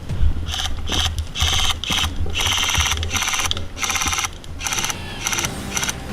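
Airsoft electric rifle (AEG) firing full-auto in repeated bursts of rapid shots, the longest in the middle and shorter, quicker bursts near the end.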